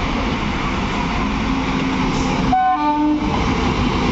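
Electric locomotive and its coaches running past close by, a loud steady rumble of wheels on rail. About two and a half seconds in, the locomotive sounds a short horn blast of under a second that steps from a lower note to a higher one.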